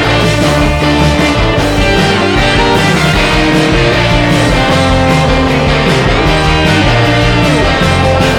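Background music: guitar-driven rock with a steady beat.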